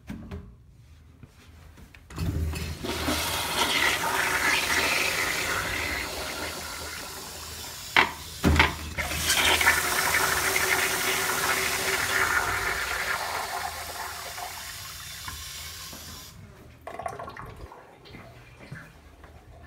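An Eljer Sanus commercial toilet flushing a load of toilet paper. A loud rush of water starts about two seconds in and runs for about fourteen seconds, with two sharp knocks partway through. It then drops to a fainter trickle near the end.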